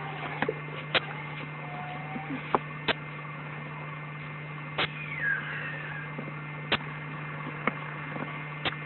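A steady low hum with about eight sharp clicks scattered irregularly through it, and a faint short chirp-like glide near the middle.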